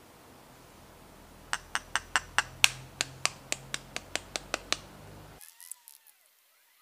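About fifteen sharp taps at four to five a second: a free-range chicken egg being knocked against a glass bowl to crack its shell. A few faint crackles follow as the shell is pulled open.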